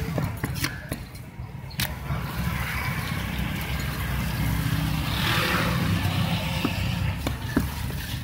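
Motor vehicle engine running close by, a steady low rumble, with a few sharp knocks scattered through it.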